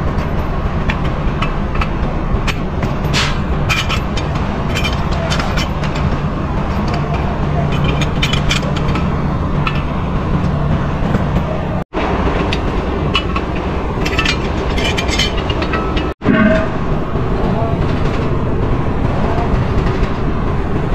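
An engine running steadily under a noisy mix of scattered short metallic clicks and clanks and background voices. The sound drops out abruptly twice.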